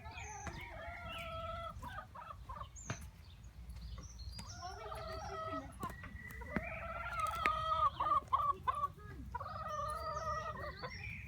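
Chickens clucking, with a series of drawn-out calls that are loudest around two-thirds of the way through.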